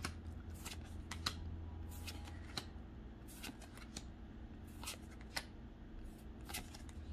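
Pokémon trading cards handled one by one, each card taken off the stack in hand and laid onto a pile: soft, irregularly spaced card flicks and slaps, about a dozen of them, with a faint steady low hum underneath.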